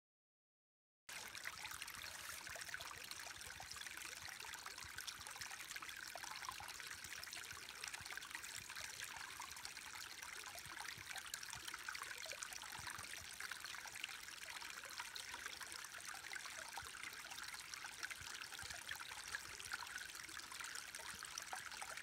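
A small creek trickling over a tiny waterfall: a steady, mostly high-pitched hiss of running water that starts about a second in.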